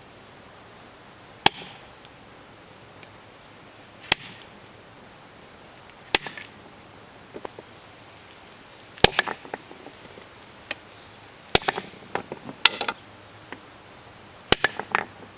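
Hand sledge hammer striking the back of a hatchet head whose blade is set on a small rounded stone, driving it in like a wedge to split the stone. Six sharp metallic strikes a couple of seconds apart, some followed by a few lighter clinks.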